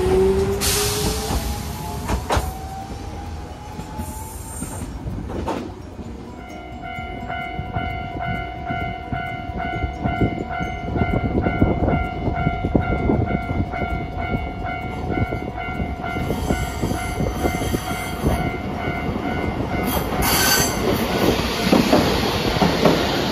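A Hiroden tram pulls away, its traction motor whine rising in pitch over the first few seconds. A level crossing warning bell then rings in a steady repeating pattern for about fourteen seconds. Near the end it stops, and an arriving tram gives a short high squeal followed by the rumble of its wheels on the rails.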